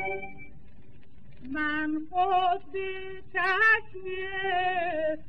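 Female voice singing a Persian tasnif in the Shushtari mode with wide vibrato, on an early-1930s Columbia gramophone record. A string accompaniment phrase dies away at the start, and after a short pause the voice comes in about one and a half seconds in, in several held, wavering phrases.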